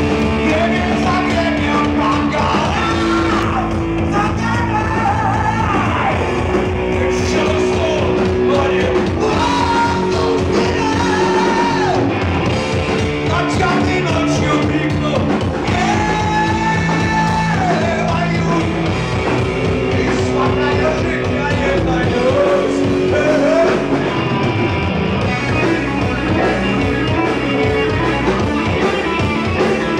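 Live rock band playing loudly and steadily: electric guitar, bass guitar and drum kit, with a melody line that bends in pitch above the held chords.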